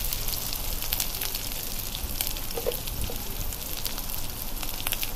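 Sliced onions and green chillies sizzling in hot oil in a wok: a steady hiss with scattered crackles and pops.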